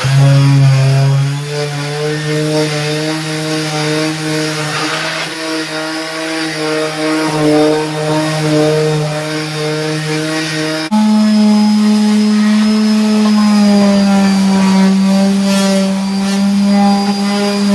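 Electric orbital sheet sander running steadily against pine boards with a constant hum. About eleven seconds in it cuts off abruptly and a detail sander takes over, humming at a higher pitch as it sands pine timber.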